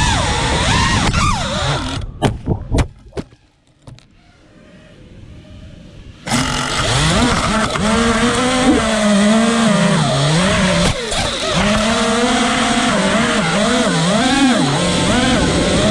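Brushless motors and props of an FPV quadcopter whining, the pitch sliding up and down with the throttle. About two seconds in there are a few sharp knocks, then the motors go quiet for about three seconds before spinning back up abruptly.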